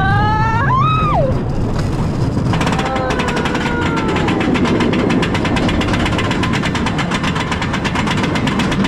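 Roller coaster heard from on board: a rider's whoop rising and falling in pitch in the first second or so, then a fast, steady rattle from about two and a half seconds in, over a low rumble.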